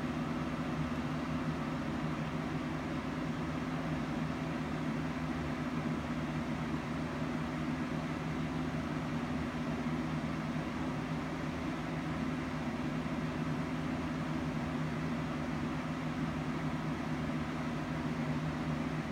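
Steady machine hum: a low two-note drone over an even hiss, unchanging.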